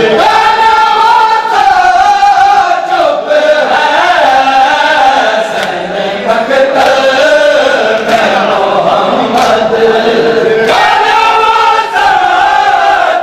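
Men chanting a mourning lament in unison (a nauha), with sharp slaps of open hands on bare chests (matam) breaking through the singing at irregular moments.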